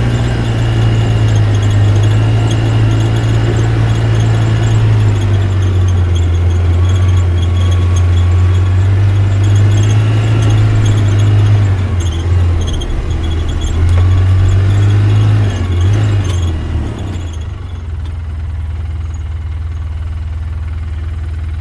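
Car engine running after being started, with a steady low drone that wavers slightly a few times and a thin high squeal over it in the first few seconds. It settles quieter about seventeen seconds in.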